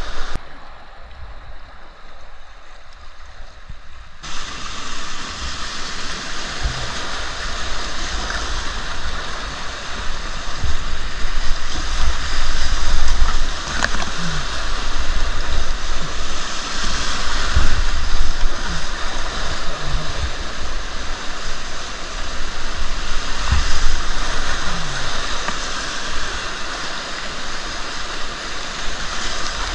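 Rushing whitewater of a river, a steady wash of water noise that is quieter for the first few seconds and then grows loud from about four seconds in. Dull low thumps recur through it.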